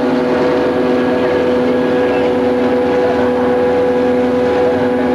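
EMD GP9 diesel-electric locomotive's two-stroke 567 engine running steadily under power, heard from inside the cab. It makes a loud, even hum with a strong steady pitch.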